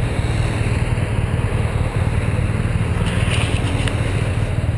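BMW F650GS motorcycle engine running at low revs with a steady low drone.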